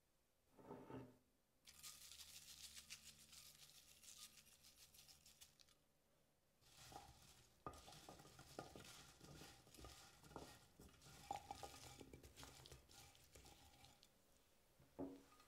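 Chickpea crumbs poured over halved Brussels sprouts with a dense crackly rustle. A spatula then tosses the sprouts in a ceramic baking dish, with irregular soft knocks, clicks and scrapes against the dish.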